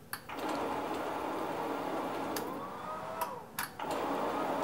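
Grizzly G0602 lathe spindle turning slowly under its Teco-Westinghouse L510 VFD, set at about 6 Hz: a steady mechanical running sound with a faint whine that rises and falls near the middle and a brief dip about three and a half seconds in.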